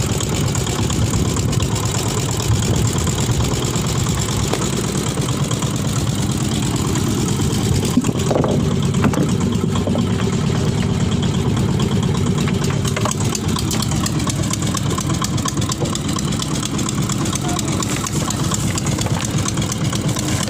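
A fishing boat's engine running steadily at idle, a constant low hum with a fast, even pulse, while the net is hauled aboard.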